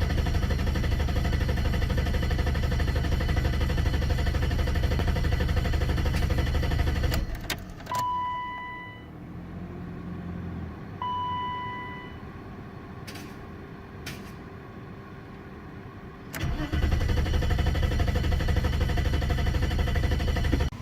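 BMW E32's M30 straight-six engine running, then cutting out about seven seconds in. Two short warning chimes and a couple of clicks follow. The engine catches again about sixteen seconds in and keeps running. This is the stalling fault that comes with its hard-start problem.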